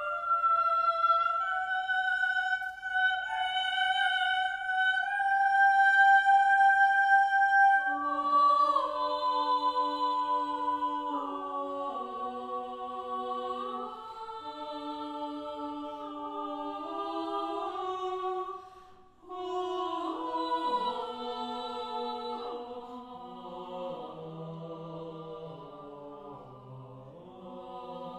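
SATB a cappella choir singing slow, sustained chords. High voices hold long notes alone for the first several seconds, then the lower voices join and the harmony moves in slow steps. After a brief break about two-thirds of the way through, the chords resume and the basses sink low near the end.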